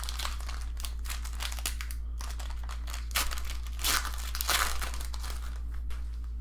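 Trading card pack wrappers and cards being handled, crinkling and rustling irregularly, loudest about three to five seconds in, over a steady low hum.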